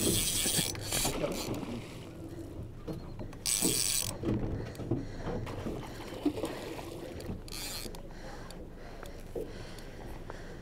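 Background noise aboard a small fishing boat on calm water, with scattered light knocks and three short bursts of high hiss.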